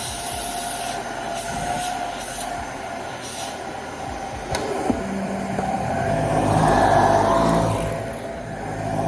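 Dyson Ball Multifloor 2 upright vacuum running with a steady whine while vacuuming carpet. There is a click a little before halfway, and the motor sound grows fuller and louder about six seconds in.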